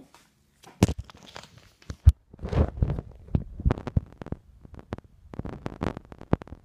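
Close handling noise on a phone's microphone: irregular taps, knocks and rustling, with one sharp knock about two seconds in.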